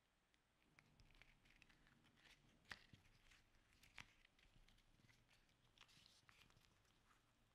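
Faint crinkling and rustling of a thin, clear potato-starch bioplastic film as it is handled, pressed and folded by hand, with scattered light ticks. The crinkling starts under a second in, and there are a couple of sharper clicks along the way.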